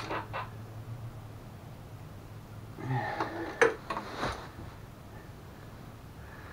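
Metal clinks and knocks of hand tools and bolts as the front bumper is fastened onto a mobility scooter's frame, with a sharp click about three and a half seconds in, over a steady low hum.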